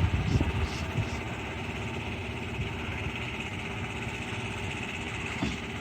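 Engine of the street-sealcoating equipment running steadily at idle, with a few knocks in the first second.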